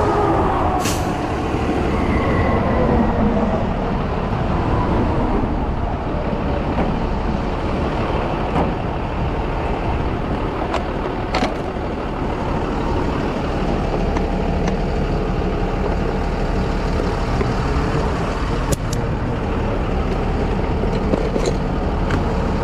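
Vehicle engine running with a steady low rumble; in the first few seconds its tone falls away. A few brief clicks are heard along the way.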